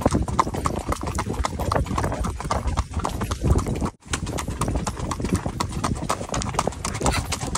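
Horse's hooves clip-clopping on a gravel road in a quick, steady rhythm of several hoofbeats a second, heard from the saddle. The sound cuts out briefly about four seconds in.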